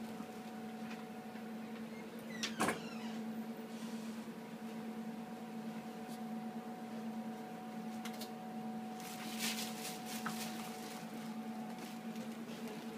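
A steady electrical hum from equipment in a small room, with two sharp knocks close together about two and a half seconds in and a brief rustle around nine and a half seconds.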